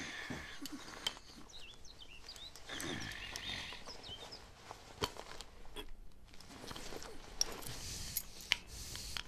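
Outdoor rural ambience with birds chirping during the first few seconds, and a few sharp clicks later on.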